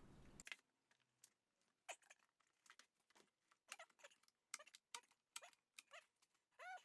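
Faint scattered clicks and light taps from handling wood and clamps during a glue-up, with one short squeak near the end.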